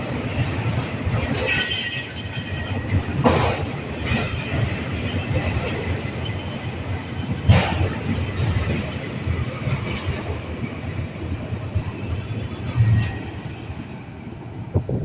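Union Pacific train rolling past: a steady rumble of steel wheels on rail with high wheel squeal that comes and goes. Two sharp clanks come about three and seven and a half seconds in.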